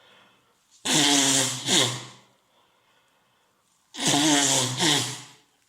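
A man with a head cold blowing his stuffed, runny nose, twice: about a second in and again about four seconds in. Each blow lasts about a second and a half, with a second push near its end.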